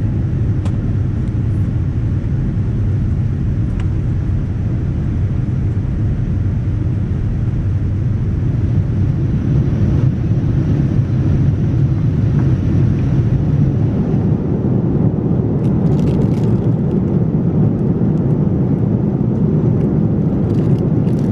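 Steady cabin noise inside a Boeing 787-9 during the climb after take-off: the deep, even roar of the engines and airflow. A few faint crackles come near the end.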